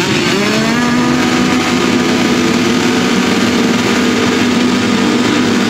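A whole start line of motocross bikes revving together, their engines rising in pitch about half a second in and then held steady at high revs in a dense, many-engine drone, as riders wait for the start gate to drop.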